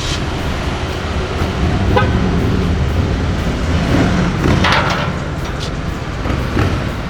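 Car engine running steadily, with background music mixed in.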